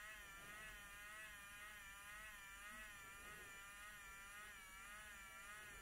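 Faint, high buzzing whine of a Geeetech 3D pen's filament-feed motor pushing filament through the hot nozzle, its pitch wavering slightly.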